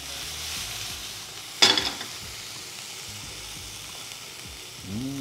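Frying pan sizzling steadily, with cherry tomatoes searing in hot oil. A single sharp knock comes about a second and a half in.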